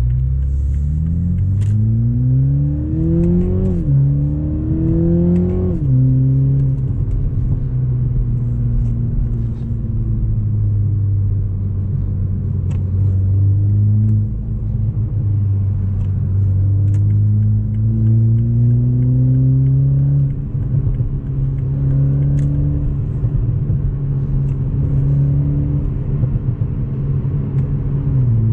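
Toyota GR Supra 2.0's turbocharged four-cylinder, breathing through an FI Valvetronic aftermarket exhaust, heard from inside the cabin. It revs up through two quick upshifts in the first six seconds, with the pitch dropping at each shift, then settles into a steady cruise that rises and falls gently with the throttle.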